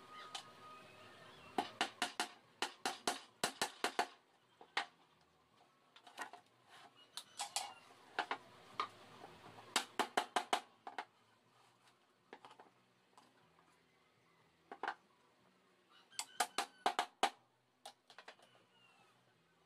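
Claw hammer tapping a small nail into a thin wooden strip on a plywood panel: short runs of quick, light strikes, several a second, separated by pauses.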